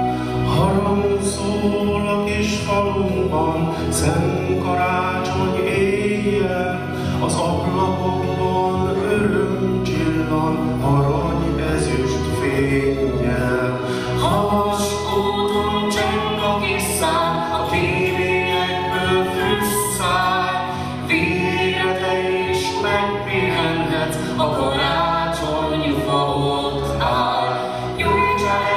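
Folk choir singing a hymn-like song, a man's voice leading on a microphone, over flute and string accompaniment.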